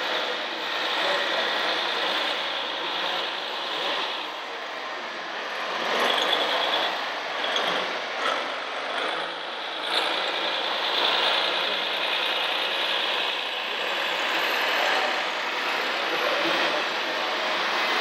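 Radio-controlled scale Mercedes-Benz Arocs tipper truck driving with a low-loader trailer in tow, a steady mechanical whir with a few swells in level.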